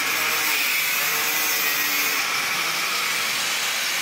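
Handheld power grinder running steadily against the steel hull of a barge, cutting away the fastenings of the hull's cooling pipe: a continuous, even grinding hiss with no break.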